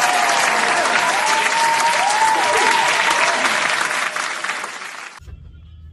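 Applause sound effect: a crowd clapping with a few whoops over it, cutting off suddenly about five seconds in.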